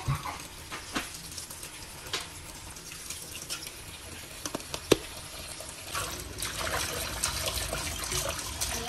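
Kitchen tap running in a steady stream into a stainless steel pot of leafy greens in a steel sink, with a few sharp knocks, the loudest about five seconds in. From about six seconds in the water splashes louder as a hand swishes the leaves to wash them.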